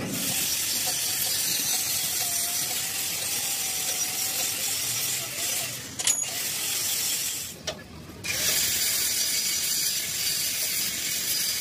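Ratchet wrench clicking rapidly and continuously as it runs nuts down on the bolts of a steel truck-chassis bracket, with two brief pauses, about six and about eight seconds in.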